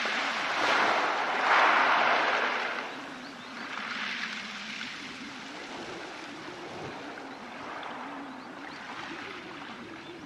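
Sea waves washing up and drawing back over a pebble beach. A loud surge comes in the first few seconds, then the wash settles into softer, gentler swells.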